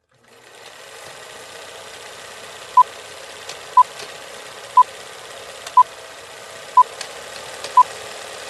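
Old-film countdown leader sound effect: a steady film hiss with scattered crackles and pops, and a short high beep once a second as the numbers count down, six beeps in all.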